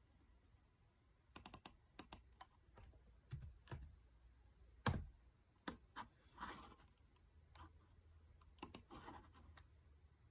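Faint, irregular clicks of a computer mouse and laptop keys, with one louder click about five seconds in. Two short, soft rustling sounds come partway through.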